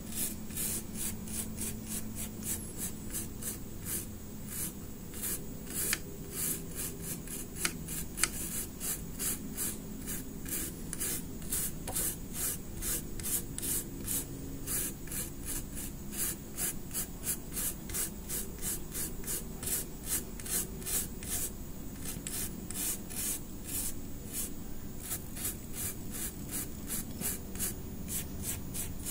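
A stiff-bristled brush scrubbing back and forth across a plastic AM3+ CPU socket on a motherboard: quick scratchy strokes, a few a second, sweeping dust and corrosion out of the pin holes.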